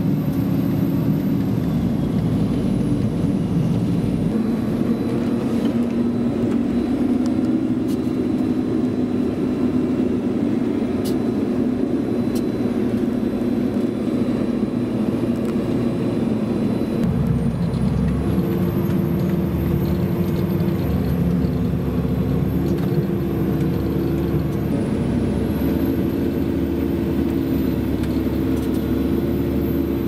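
Heavy tractor's diesel engine heard from inside the cab while it drives over and compacts chopped maize on the silage clamp. Its note shifts about halfway through and again near the end, each time with a faint high whine rising.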